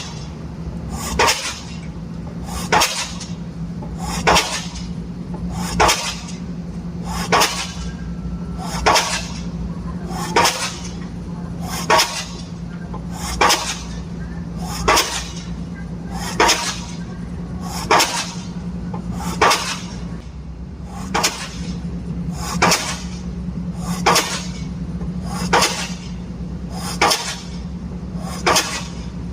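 Diesel pile-driving hammer striking a pile in a steady rhythm, one sharp clanging blow about every one and a half seconds, over a steady low hum of machinery.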